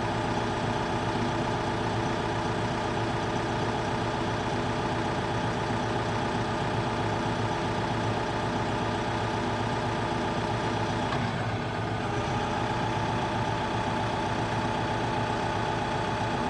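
TYM T654 tractor's diesel engine running steadily at low throttle, below PTO speed, heard from inside the cab, with a slight dip in the sound about eleven seconds in.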